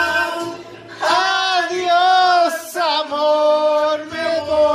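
A man singing a slow melody in long held notes with vibrato, over a faint low bass accompaniment.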